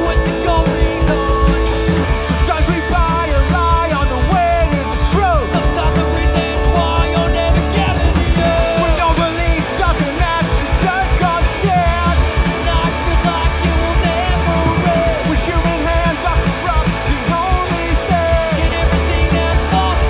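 Punk rock band playing live: two electric guitars, bass guitar and a drum kit at a fast, steady beat, with singing.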